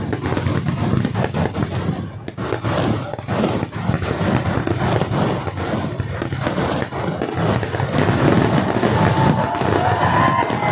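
A dense, rapid barrage of firecracker bangs from a Kerala daytime fireworks display (pakal vedikettu), the blasts running together into a continuous crackle.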